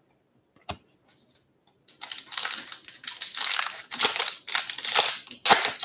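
Foil baseball-card pack wrapper being torn open and crinkled by hand, a dense crackling rustle that starts about two seconds in.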